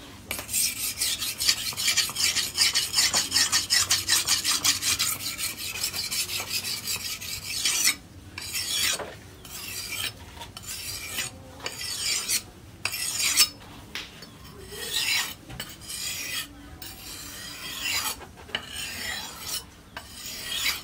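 A steel knife blade, forged from a tractor plough disc, is being sharpened on a whetstone, with a gritty scraping of metal on stone. For about the first eight seconds the strokes are rapid and back and forth. After that they slow to separate strokes, roughly one a second, with short pauses.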